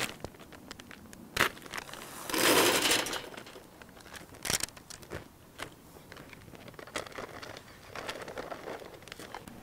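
A snack packet being handled and emptied in the hands, crinkling and rustling. There is a louder crinkling burst lasting under a second about two seconds in, and a few sharp clicks.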